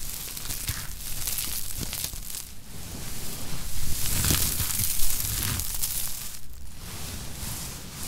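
Dry, crispy crushed soap flakes and curls being scooped and squeezed by hand: a dense crisp crackling and rustling, louder around the middle, with a short lull near the end.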